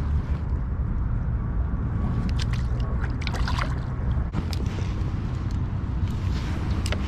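Steady wind rumble on the microphone, with a scatter of short splashes and knocks of water at the kayak's side as a crappie is let go back into the river.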